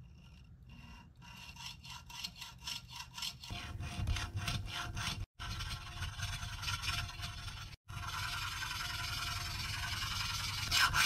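Steel pivot burnisher rubbing on a watch wheel's pivot turning in a Jacot lathe. It starts as quick rhythmic strokes, about four a second, and after a few seconds becomes a denser continuous rasp. The burnishing smooths a pivot that had worn into a mushroom shape.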